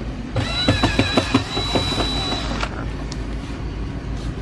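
Cordless drill running for about two seconds with a steady high whine and a run of sharp knocks, backing out the screws that hold a fridge door's fiberglass insert.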